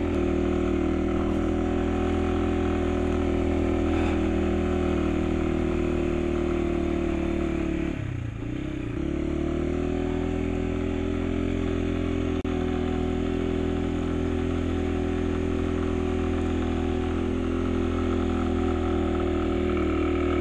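Motorcycle engine running steadily under load in first gear on a climb. About eight seconds in the revs drop briefly and then pick back up.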